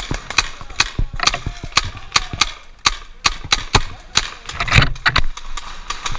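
Airsoft gunfire: a run of sharp shots, irregularly spaced at about two or three a second.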